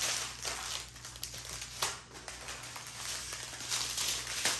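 Crinkling and rustling of strips of small plastic bags of diamond-painting resin drills being picked up and handled, in irregular bursts.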